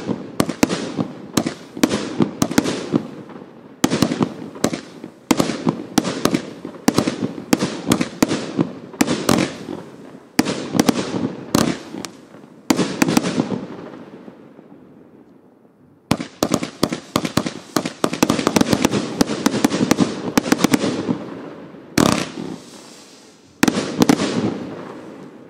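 Evolution Fireworks' 'Prometheus' consumer firework cake firing: rapid strings of shots, each with a fading tail as the shells burst. There is a short lull about halfway through, then another dense string and two loud single bangs near the end.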